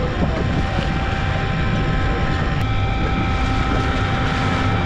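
Sportfishing boat's engines running steadily: a low rumble with a few steady high tones over it.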